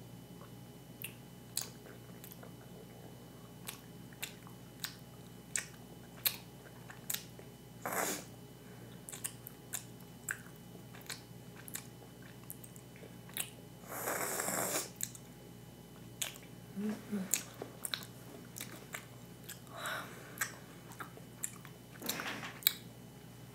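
Mouth chewing a large wad of chewy Lemonheads and Friends candies: scattered wet clicks and smacks, with a louder hiss lasting about a second, fourteen seconds in.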